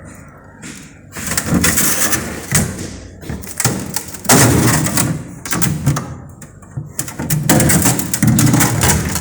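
Refrigerator door being handled: several thuds and knocks spread over a few seconds.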